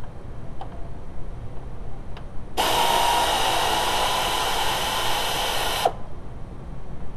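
A handheld power tool's motor runs steadily for about three seconds, starting and stopping abruptly, as it spins a fastener.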